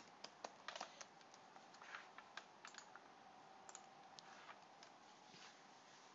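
Faint typing on a computer keyboard: a handful of irregular keystroke clicks.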